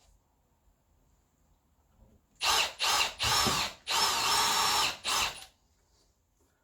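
Power drill run in five short trigger bursts, each under a second, its motor whine rising and falling in pitch as the speed changes.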